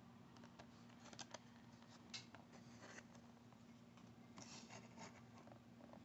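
Faint crinkles and scratches of a clear plastic blister pack handled in the fingers, a few at a time, over a faint steady hum.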